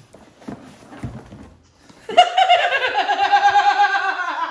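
Cardboard box and packaging handled and rustled, then about two seconds in a woman breaks into a long, high-pitched, pulsing laugh.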